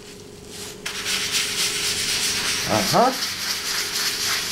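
Plastic bag rubbing in swirling strokes over an oiled end-grain rock maple butcher block, working an oil and board-cream mixture into the wood; the rubbing starts about a second in and carries on steadily.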